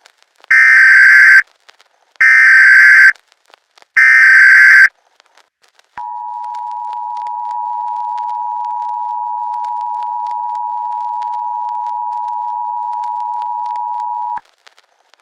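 Emergency Alert System alert tones: three loud bursts of the SAME digital header, each about a second long, then the steady two-tone EAS attention signal held for about eight seconds before it cuts off. Together they announce an emergency alert broadcast.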